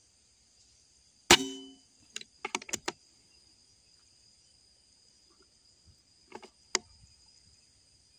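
Air rifle firing a single slug shot a little over a second in, a sharp crack that trails off briefly. It is followed by a quick run of four or five clicks, then two more clicks near the end, over a steady high drone of insects.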